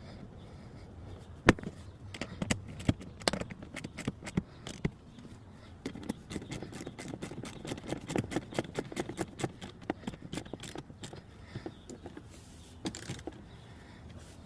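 Small sharp clicks and taps as the two 10 mm bolts are put back and tightened on the dash speaker mount. A few separate clicks come in the first seconds, then a denser run of clicks through the middle.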